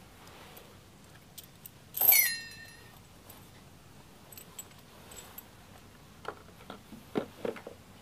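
A bright chime-like sound about two seconds in that sweeps down in pitch over less than a second. Later come a few light clicks and knocks as small items are handled and set down at a wooden shelf.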